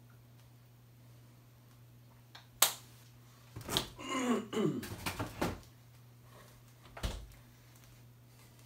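Kitchen handling noises over a steady low hum: a sharp click about two and a half seconds in, then a couple of seconds of squeaky rattling, and a knock near the end.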